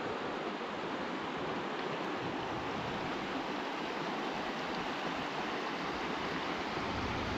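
Steady rush of a shallow, fast-flowing mountain river running over a bed of stones and pebbles.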